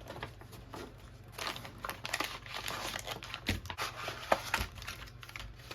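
Plastic MRE ration packaging crinkling and rustling as it is handled, with a few sharper knocks from items set down.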